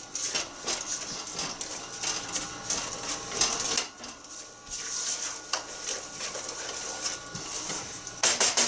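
Silicone spatula stirring a wet strawberry-rhubarb and sugar mixture in a stainless steel pot: rhythmic scraping and squelching strokes against the pot's sides and bottom. Near the end comes a quick run of sharp knocks.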